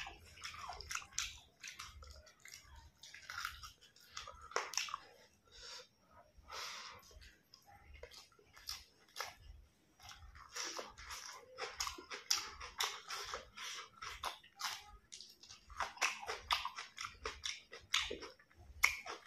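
A person chewing mouthfuls of rice and curry with raw vegetables: irregular crisp crunches and wet mouth smacks. The crunching is heaviest after a slice of raw onion goes in with the rice about ten seconds in.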